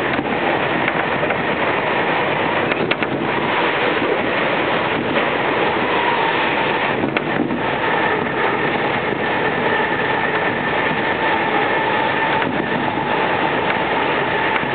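Electric commuter train running at speed, heard from inside the carriage: a steady rolling rumble with a faint high motor whine that grows stronger about halfway through, and a few clusters of clicks as the wheels cross rail joints.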